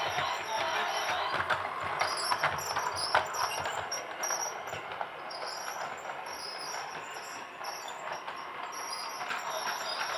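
Toy train running, a steady rattling whir with scattered sharp clicks. The clicks are thickest in the first few seconds.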